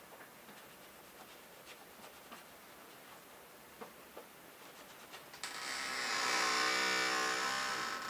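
Faint clicks and rubbing as small metal parts are handled. About five seconds in, a much louder pitched mechanical whirr starts suddenly, swells and fades over about three seconds.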